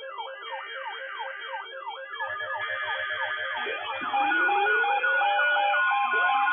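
Several electronic siren-like alert tones sounding at once: a falling yelp repeating about twice a second, joined about four seconds in by rising wails and a rapid two-pitch alternating beep, getting louder.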